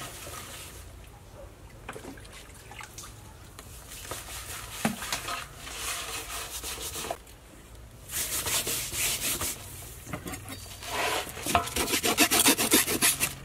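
Hands scrubbing a wet, scaly snakehead fish in a steel basin, a rasping rub. It gets louder about two-thirds of the way in and turns to quick, repeated strokes near the end.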